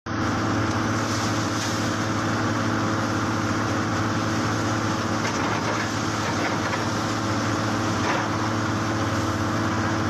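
An engine or motor running steadily at constant speed, with an even low hum.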